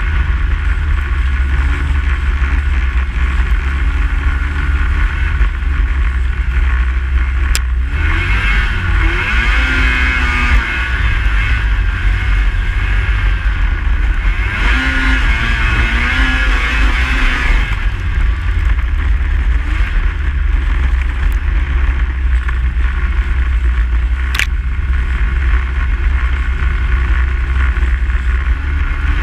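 Snowmobile engine running under way, with strong wind rumble on the microphone; the engine revs up twice, about a third and a half of the way through. Two sharp clicks sound, one near the first rev and one near the end.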